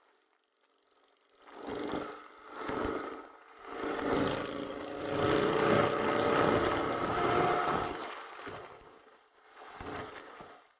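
Wind noise on the camera microphone of a moving motorcycle, swelling and fading in gusts and loudest in the middle, with the motorcycle's engine running beneath it.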